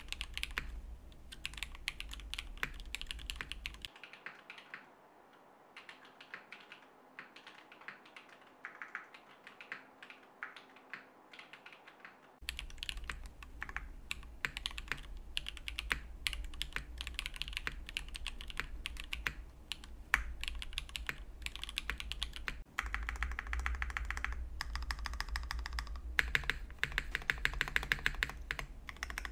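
Iron 165 custom mechanical keyboard, with a polycarbonate and brass case, aluminium plate, Zaku switches and GMK keycaps, being typed on continuously as a rapid stream of keystroke clacks. The typing drops quieter for several seconds about four seconds in, then picks up again and grows denser and louder near the end.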